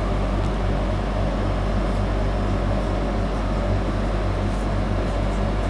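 Steady low electrical hum with room noise, with a few faint short scratches of a marker writing on a whiteboard.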